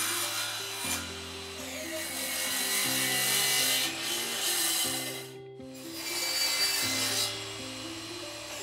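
Electric miter saw blade cutting through a wooden dowel in two stretches, with a brief break a little past halfway. Background music with a steady bass line plays throughout.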